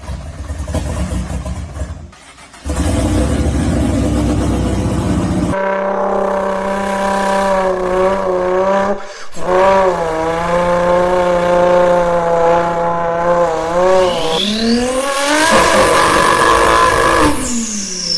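A low rumble from a tuned 2000-horsepower Nissan GT-R's engine for the first few seconds. Then a man imitates the engine with his voice, making a steady, wavering drone into a microphone inside a paper towel roll. Near the end he does a sharp rising rev, and the sound glides back down.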